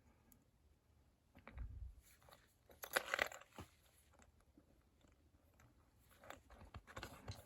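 Quiet handling noises as small lock-picking tools are picked up and sorted: scattered light clicks and crinkly rustles. The loudest cluster comes about three seconds in, with more near the end.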